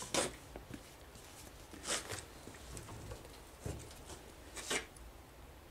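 Faint handling noises from a plastic oil jug: a few short scraping rustles as its cap is screwed on, and a soft thump about three and a half seconds in as the jug is set down on a workbench.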